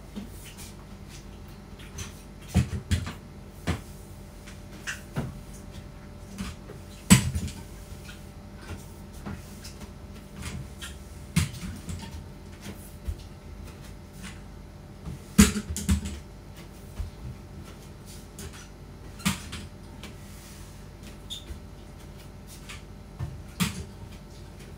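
Scattered household knocks and clicks, irregular and sharp, as someone moves about the room handling things; the two loudest come about 7 and 15 seconds in. A faint steady hum runs underneath.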